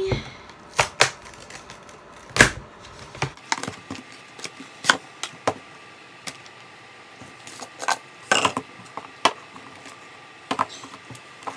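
Cardboard box and plastic bottles and cup of a home hair-dye kit being unpacked and handled: scattered clicks, taps and knocks, the loudest about two and a half seconds in.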